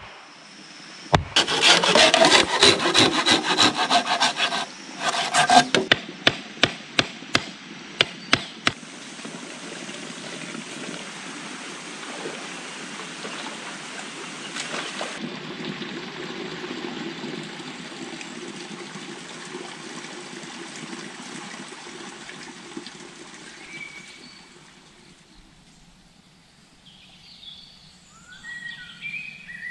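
Wood being worked by hand: a loud spell of scraping and knocking, then a quick run of about ten sharp wooden knocks. A steady low rush follows, and birds call near the end.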